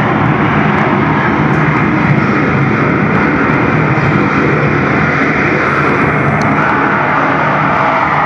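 Recorded jet engine noise of a Royal Navy Phantom running steadily at high power, played loud over a museum exhibit's loudspeakers as part of a simulated catapult launch.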